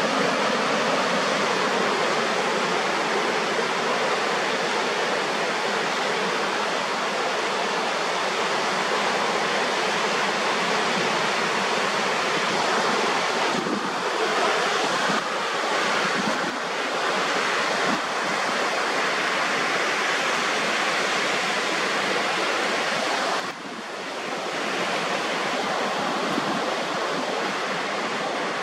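Ocean surf breaking on an offshore reef and washing over a rocky shallow flat: a steady, loud rush of waves. About 23 seconds in it dips briefly, then continues a little quieter.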